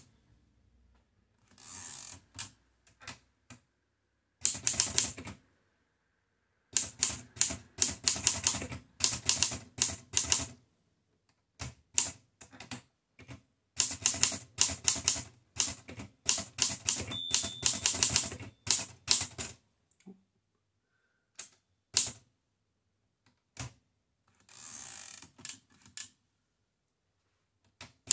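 Typing on a 1943 Erika 5Tab portable typewriter: the typebars strike the platen in quick runs of sharp clacks, broken by short pauses. There are two softer rasping sounds, one near the start and one near the end.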